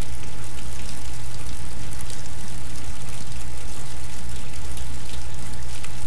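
Steady rushing water sound, like pouring or running water, at an even level throughout, with a low hum beneath it.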